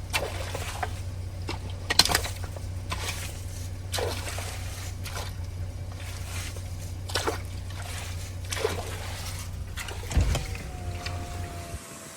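Water sloshing and trickling through a plugged culvert as it is cleared, with scattered knocks and splashes every second or two. A steady low hum runs underneath and stops near the end.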